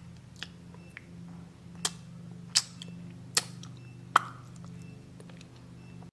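A person eating close to the microphone: sharp mouth smacks and clicks about every 0.8 s while chewing, over a steady low hum.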